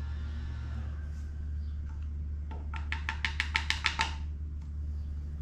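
Background music over a steady low hum, with a quick, even run of about eight sharp clicks in the middle.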